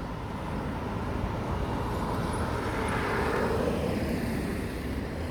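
A road vehicle passing by, its noise swelling to a peak about three seconds in and then fading, over a low wind rumble on the microphone.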